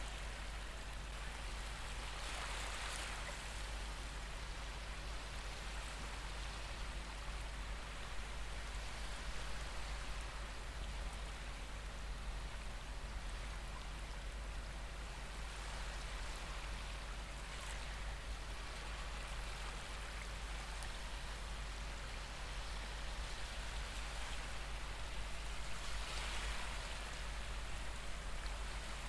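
Recorded ocean waves: a steady hiss of surf that swells as waves wash in, roughly every ten seconds.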